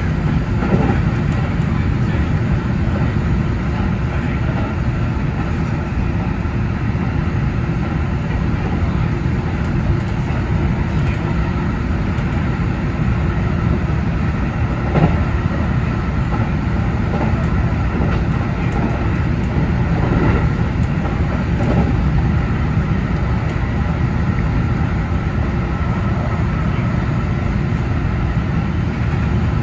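A JR Central 313 series electric train running at speed, heard from the cab: a steady rumble of wheels on rail with a faint whine, and a few light clicks.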